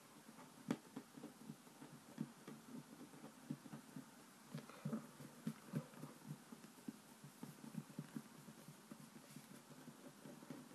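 Hands pressing and patting a flattened sheet of play dough on a wooden tabletop: faint, soft, irregular thuds, a few a second, with an occasional sharper tap.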